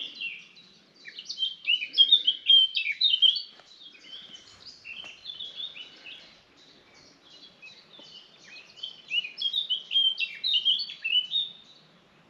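A songbird singing: two long phrases of quick, high descending notes, about a second in and again from about eight seconds in, with softer song between.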